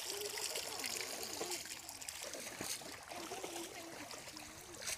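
Shallow water trickling and splashing as people wade and hand-fish in a flooded field, with faint distant voices calling.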